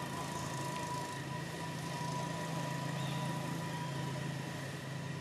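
A steady low mechanical hum with a thin, steady high whine above it.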